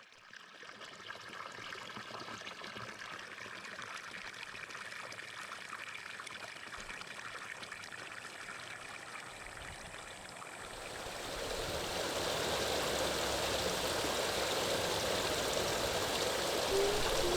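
Running water, like a stream flowing steadily, growing louder about eleven seconds in.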